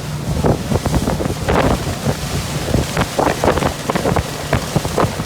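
Wind buffeting the microphone aboard a moving motorboat, in irregular gusts and knocks.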